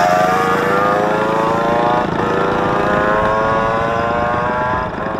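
Four-stroke underbone motorcycle engine accelerating through the gears, its pitch climbing, dropping with an upshift about two seconds in and again near the end. On fresh oil it pulls well.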